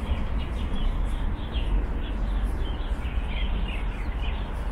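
Small birds chirping in short, repeated calls over a steady low rumble of outdoor background noise.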